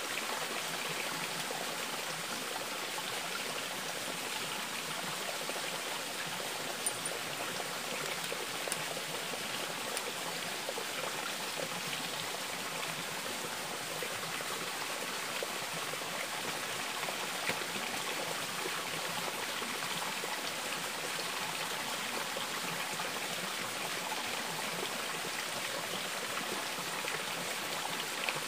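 Steady rush of a small stream of water running and trickling over rocks, with a few faint clicks.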